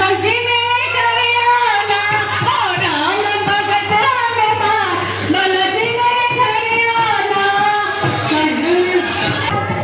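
Kirtan: Hindu devotional singing, a woman's voice carrying a gliding melody without pause over a steady low hum.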